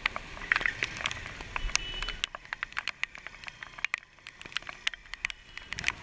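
Raindrops striking the action camera's housing, a dense irregular patter of sharp clicks and crackle, over the low rush of wind and road noise from a motorcycle riding in the rain. The patter thins out a little past the middle.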